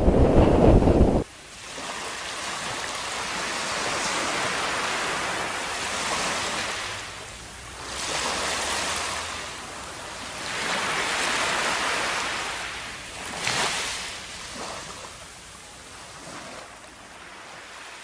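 Wind buffeting the microphone for about a second, cut off abruptly. Then small surf washes over sand, rising and falling every few seconds.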